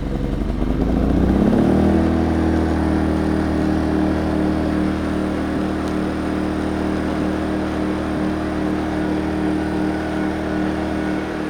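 Small inverter generator engine running on a cold start with the choke nearly full on, its pitch rising about a second in and then holding steady. It runs on a newly fitted carburetor.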